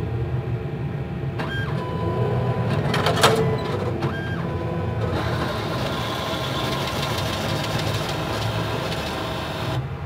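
ATM cash dispenser mechanism running as it counts and moves the banknotes out to the slot. There are two short tones and a sharp click about three seconds in. From about five seconds in the mechanism runs busier and steadier, then cuts off just before the end as the cash is presented.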